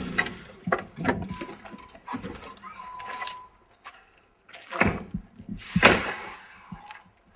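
Car doors being opened and shut as people climb out of an SUV: latch clicks and handling knocks, then two loud door slams about a second apart past the middle.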